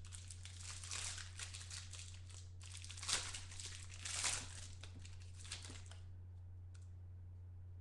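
Clear plastic wrapping torn and crumpled off a trading card box and pack, crinkling with a few sharper tears, stopping about six seconds in.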